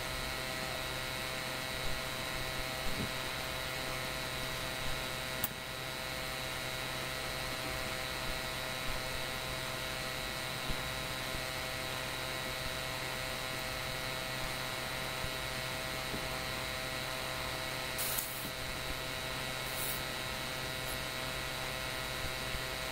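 Steady electrical mains hum with hiss, with a few faint clicks and taps from handling plastic lotion tubes and bottles.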